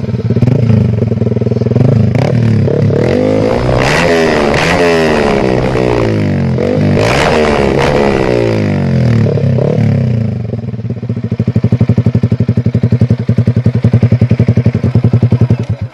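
Yamaha R15 V3's single-cylinder engine running through an SC Project slip-on muffler, very loud. It holds a steady idle, then revs repeatedly in rising and falling sweeps, then settles into a fast, even pulsing beat for the last few seconds. The owner hears a slight blatting from the exhaust and puts it down to a loose mounting plate.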